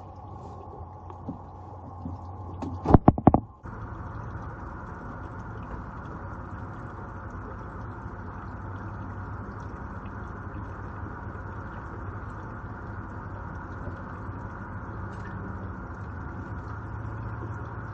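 A boat motor idling with a low steady hum under the hiss of rain. About three seconds in comes a quick run of several loud, sharp knocks, and right after them the background noise jumps up abruptly.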